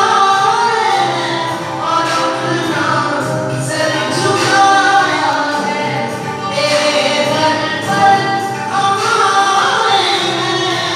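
A worship song sung by a group of voices, with a steady beat underneath.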